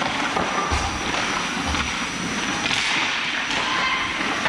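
Ice hockey play up close: skate blades scraping and cutting across the ice, with sharp clacks of sticks and puck, and two low thuds about one and two seconds in.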